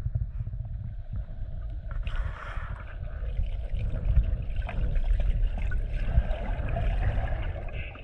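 Creek water gurgling and rushing over a heavy, uneven low rumble, with brighter splashy sounds joining about two seconds in.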